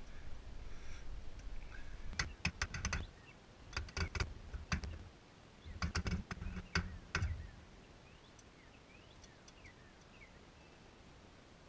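Clusters of sharp metallic clicks and clinks from hand tools and steel parts being handled at a Jeep's front wheel hub, about two, four and six to seven seconds in. After that it goes quieter, with a few faint bird chirps.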